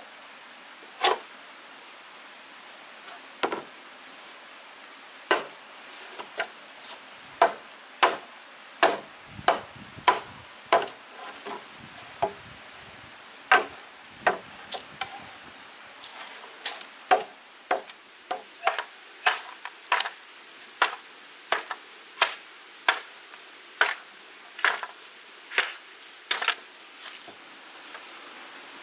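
A tool chopping into wood over and over in sharp single strikes. A few blows are spaced out at first, then they come at a steady working pace of about two a second.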